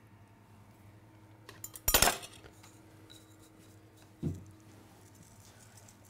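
Kitchen utensils and dishware clattering: a short cluster of sharp clicks about two seconds in, then a single lighter clink of glass a couple of seconds later.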